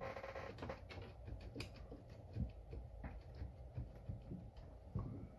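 Faint, irregular small clicks and scrapes of hands wiggling and handling a loose part on a 1949 McCulloch 1225A chainsaw during disassembly.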